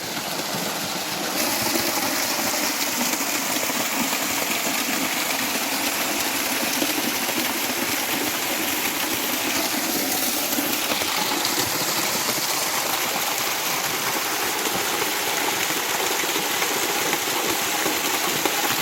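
Mountain stream rushing over rocks: a steady, loud rush of flowing water.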